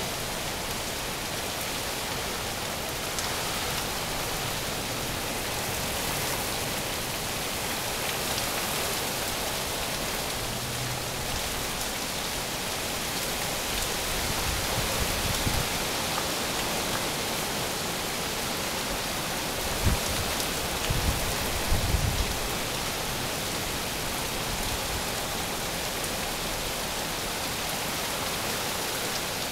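Heavy storm rain with wind, a steady even hiss. A few brief low thumps come about two-thirds of the way through.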